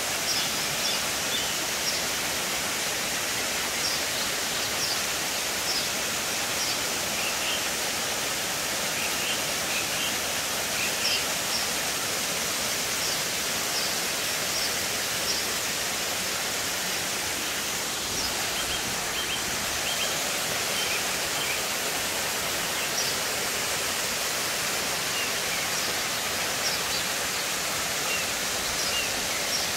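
Waterfall rushing steadily as it spills over rock ledges into a pool, with short, high bird chirps now and then above the roar of the water.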